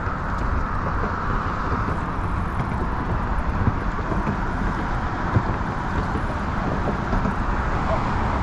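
Steady low rumble with a hiss above it, unbroken by any distinct event: outdoor background noise of the kind made by road traffic or wind.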